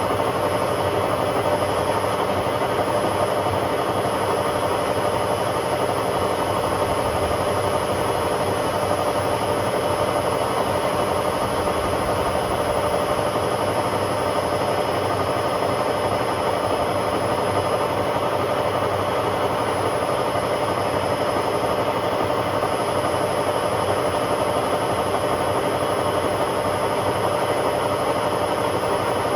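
Hotpoint Aquarius WMA50 washing machine on a spin, drum turning at a steady speed: a loud, constant motor whine over rushing drum noise, with no change in pace.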